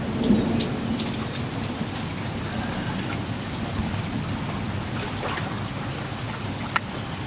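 Steady rain falling, with scattered sharp ticks of drops.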